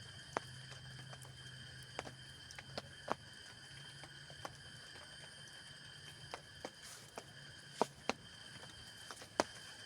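Scattered raindrops dripping onto a tent, single irregular ticks about once a second, over a faint steady high-pitched drone.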